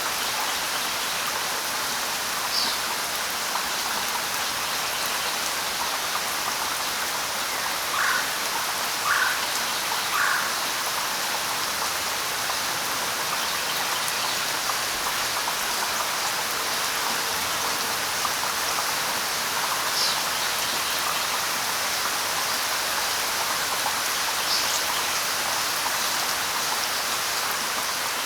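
Steady rain falling through jungle foliage, an even hiss. Birds call briefly over it now and then, including three short lower calls about a second apart roughly a third of the way in.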